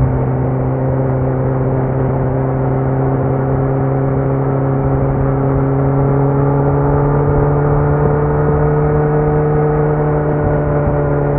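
2018 Kawasaki Z900's 948 cc inline-four through a Leo Vince muffler on stock headers with no dB killer, holding a steady engine note. The pitch rises slightly and eases back about two-thirds of the way through.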